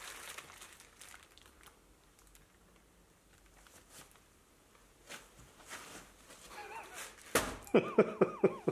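Plastic wrap around a flat of eggs crinkles faintly as it is handled. About seven seconds in there is a sharp thump as the eggs are set down, followed by a quick run of short, loud vocal sounds.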